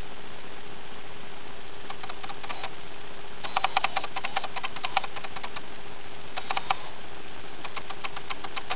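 Meerkats playfighting: short rapid clicks and scuffles in several bursts, each lasting from a fraction of a second to about a second and a half, over a steady background hiss and a faint hum.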